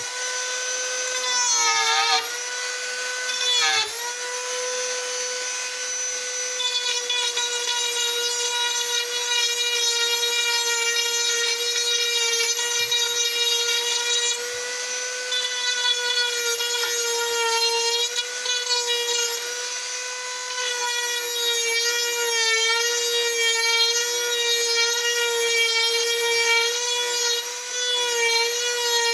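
High-speed rotary carving tool running with a steady high-pitched whine as it cuts into wood. Its pitch sags briefly under load about one and a half and four seconds in, and wavers a little later on.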